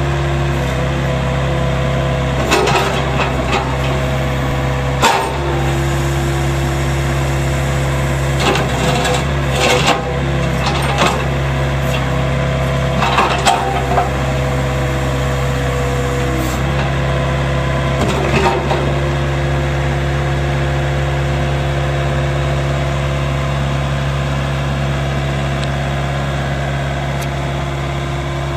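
Gehl GE353 mini excavator's 32 hp Yanmar diesel running steadily while the boom, arm and bucket are worked hydraulically, the hydraulic tone shifting as the arm moves. Several sharp knocks from the moving arm and bucket come in clusters during the first twenty seconds.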